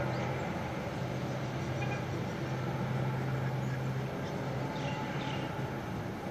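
A low, steady drone over a wide hiss of background noise, the hum breaking up a little near the end: one of the unexplained 'strange sounds' in the sky, called the creaking of the earth, which the uploader takes for something man-made.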